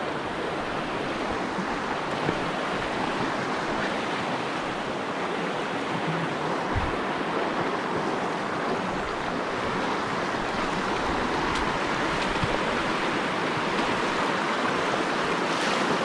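Fast mountain stream running over rocks in rapids, a steady rushing noise.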